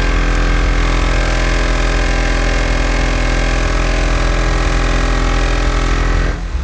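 Car engine idling steadily with a strong low rumble, cutting off abruptly near the end.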